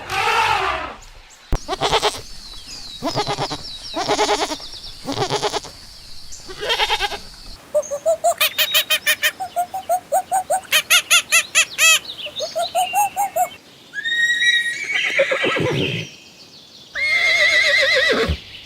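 Farm animals calling, one kind after another, with the sound changing abruptly several times. A long run of rapid, high, repeated calls comes through the middle.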